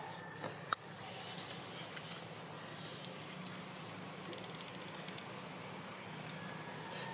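Outdoor wildlife ambience: a short high-pitched chirp repeating about every second and a half over a faint steady hum. A single sharp click sounds about three-quarters of a second in.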